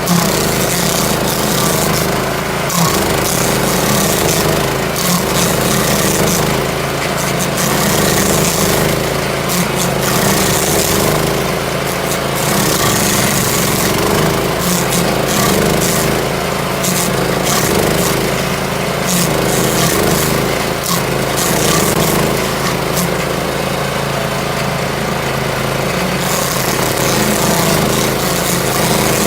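Victory GSF-2500 self-propelled stump grinder's engine running steadily at working speed, its pitch wavering slightly up and down every second or two.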